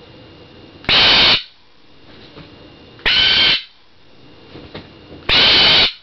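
Pet bird screaming for attention: three loud, half-second squawks about two seconds apart.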